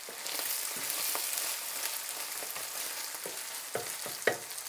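Minced meat and tomato paste sizzling steadily in a hot frying pan, browning. A wooden spatula stirs it, scraping and knocking a few times against the pan, with a sharper knock near the end.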